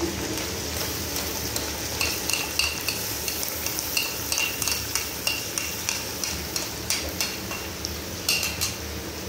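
A metal spoon scraping and tapping tomato paste out of a bowl into a pot, in a series of short clinks from about two seconds in, over the steady sizzle of chicken frying in oil.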